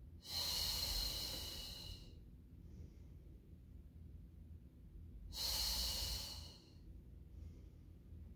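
A woman's audible Pilates breathing: two long, hissing breaths about five seconds apart, each followed by a fainter, shorter breath.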